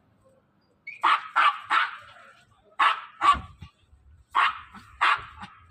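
A dog barking: a quick run of three barks about a second in, two more a moment later, and two near the end.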